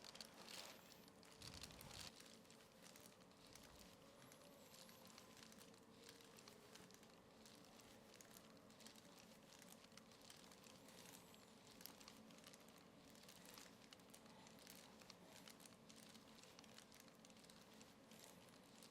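Near silence: room tone with a faint steady hum and scattered soft rustles and ticks.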